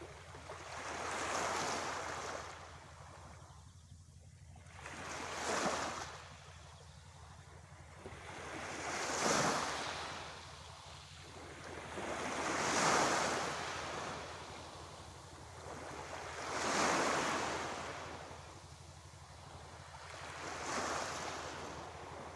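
Sea waves breaking and washing up the shore, one surge about every four seconds, each rising and then fading away.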